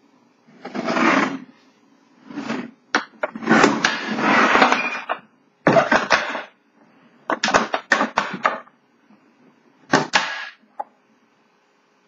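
A typewriter carrying case handled on a wooden desk: rubbing and scraping noises and a run of sharp clicks from its metal latches and lid, most of them in a cluster about seven to eight and a half seconds in, as the case is opened.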